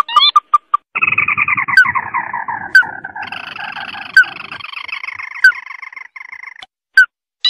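Recorded crake (tikusan mata merah) lure call: a few quick chirps, then from about a second in a long rattling trill that slides down in pitch for several seconds, punctuated by short sharp pips about once a second. The trill fades out shortly before the end.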